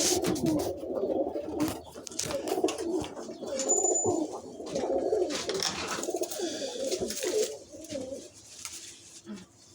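Several domestic pigeons cooing, with scattered sharp rustles and knocks over them. The cooing dies down near the end.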